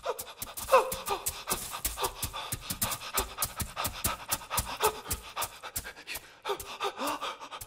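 Rapid panting breaths with short sliding vocal gasps over a dense run of sharp clicks.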